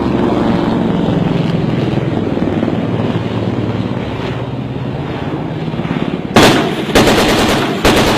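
A vehicle engine running steadily, then, about six seconds in, three loud bursts of rapid machine-gun fire in quick succession.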